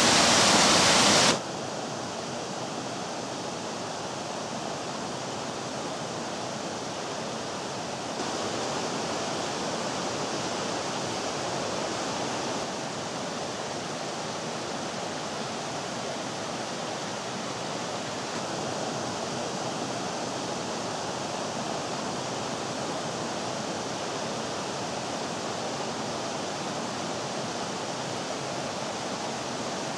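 Sipot (Shypit) waterfall rushing loudly, cutting off abruptly just over a second in. After that comes a quieter, steady rush of flowing water that rises slightly for a few seconds near the middle.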